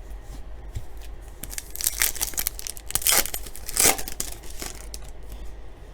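A baseball card pack's wrapper being torn open and crinkled, a run of crackling tears over a few seconds, the loudest near the end.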